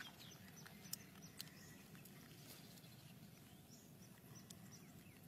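Near silence: faint room tone, with two faint clicks about a second in and a second and a half in.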